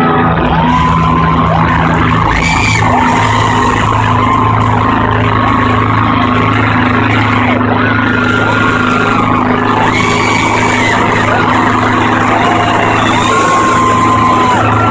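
Arena crowd of fans screaming and cheering loudly, with many high-pitched held screams rising and falling over one another, above a steady low drone.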